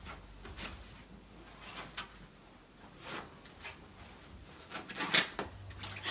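A wet dog rolling and squirming on its back on a bare quilted mattress: short bursts of rubbing and scuffing of body against the mattress cover, about one a second, with the loudest cluster about five seconds in.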